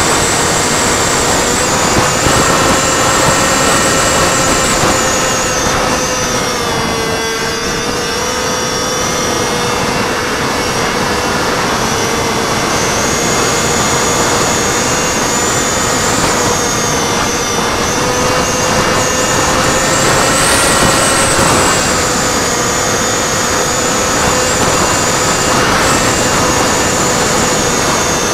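HobbyZone Delta Ray RC plane's electric motor and pusher propeller running in flight, recorded from the plane's own onboard camera: a steady drone with a high whine, its pitch wavering a little, over wind rushing past the airframe.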